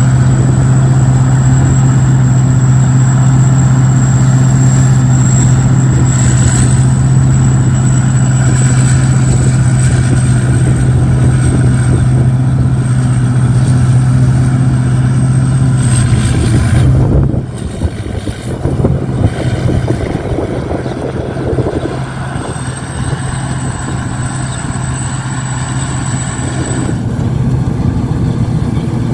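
Rice combine harvester's engine running steadily under load while harvesting, with a thin high steady whine over it. A little past halfway the engine note breaks and the sound drops, then it settles back to a steady run slightly quieter.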